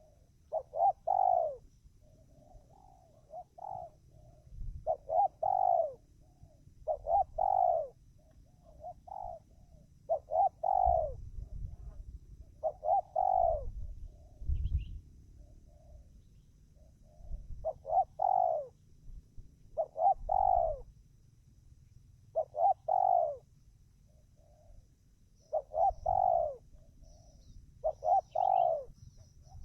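Spotted dove (tekukur) cooing over and over: short phrases of soft lead-in notes, each ending in a loud falling coo, repeated every two to three seconds.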